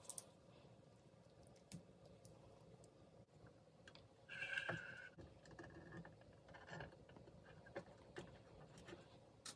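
Faint clicks and light knocks of small metal fan parts being handled on a workbench, the sharpest click right at the start, with a brief squeaky scrape about halfway through.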